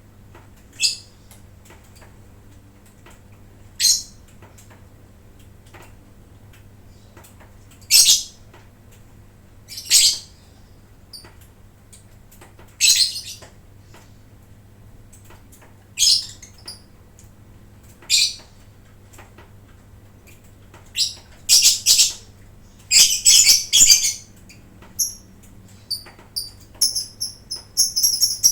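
Lovebirds giving short, shrill, high-pitched calls, one every two to three seconds, bunching into several calls about three quarters of the way in and a quicker run of chirps near the end. A faint steady low hum runs underneath.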